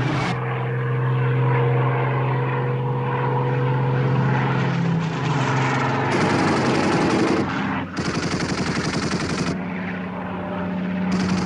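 War-film dogfight sound effects: a steady piston aircraft engine drone, then in the second half bursts of rapid machine-gun fire, the longest a fast rattle a little past the middle.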